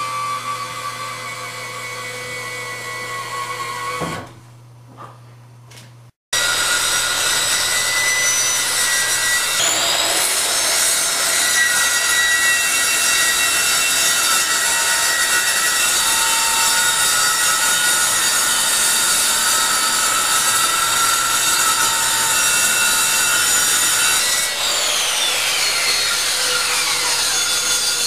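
A handheld circular saw cutting a sheet of Lexan polycarbonate: a loud steady whine and rasp of the blade through the plastic, then the blade spinning down with a falling pitch near the end. Before it, for the first few seconds, a quieter steady mechanical whir.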